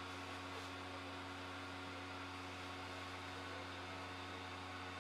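Gemmy airblown inflatable's built-in blower fan running steadily: a low hum with an even airy hiss over it.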